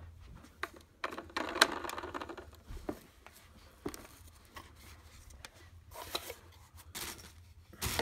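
Handling noise from an unpowered Hart cordless stick vacuum: a stretch of rustling and scraping about a second in, then a few sharp plastic clicks and knocks as its parts are turned and set down.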